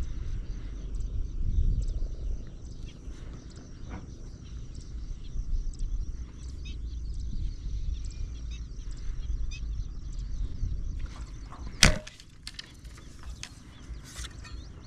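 Wooden rubber-band speargun fired once about twelve seconds in: a single sharp snap as the bands release the spear, followed by a few lighter clicks as the shooting line pays out. Before the shot there is only a low rumble and a faint steady high whine.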